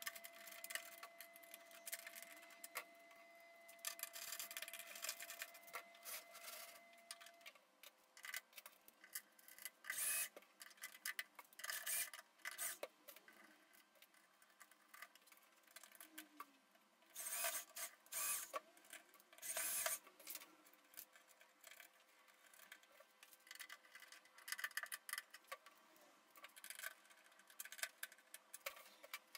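Screws being driven by hand with a screwdriver into metal brackets and panels, with irregular short scrapes, rubs and clicks of the tool and parts being handled.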